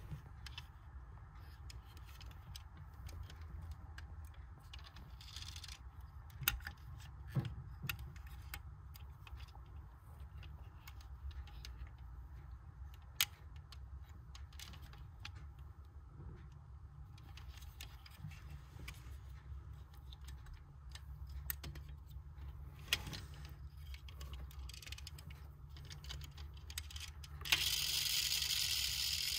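Small clicks and rattles from a diecast toy Hummer being handled, its opening doors and hood snapping open and shut, over a steady low hum. Near the end a louder hiss sets in.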